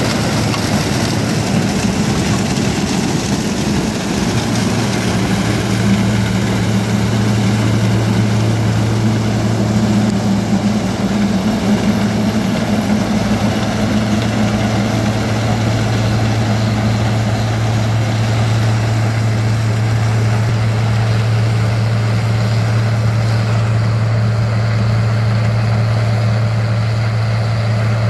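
Case IH 2188 combine harvesting corn: its diesel engine and threshing machinery running steadily with a strong low hum. The sound turns slightly duller near the end.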